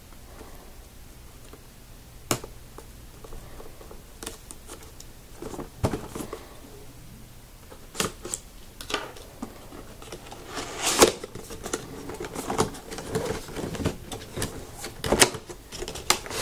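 Unboxing handling noise: a utility knife slitting a cardboard webcam box, with scattered sharp clicks and taps of cardboard and clear plastic packaging. About ten seconds in comes a longer scraping rustle, the loudest sound, as the plastic clamshell slides against the cardboard.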